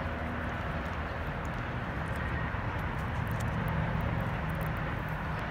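Steady low background rumble, with a cordless screwdriver running at low speed for about a second and a half, about three seconds in, as it turns the top screw of a Salto escutcheon lock to release the battery cover.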